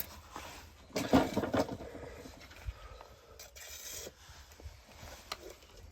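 Wire mesh being handled and scraped. A burst of scratchy rasping comes about a second in, followed by scattered small clicks and rubs.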